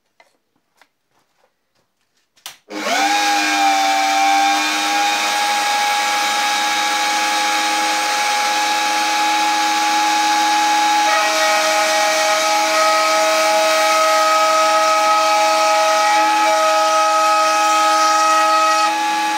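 Power router starting up about three seconds in, its motor whine rising briefly and then running steadily. About eleven seconds in the pitch changes and extra tones join as the bit cuts a small round into the bottom edge of a wooden French cleat.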